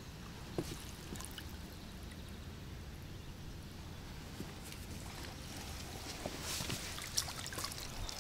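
Water splashing and trickling in and around a landing net holding a freshly netted mirror carp, with the splashing louder near the end as the net is lifted, over a steady low rumble.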